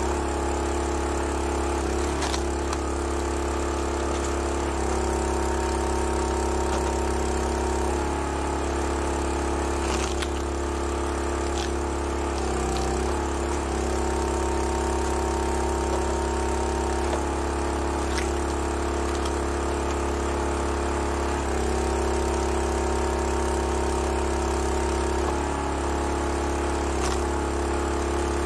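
Small gas engine on a 22-ton log splitter running steadily, its note shifting every few seconds as the hydraulic ram is worked through splitting strokes. A few sharp knocks come through.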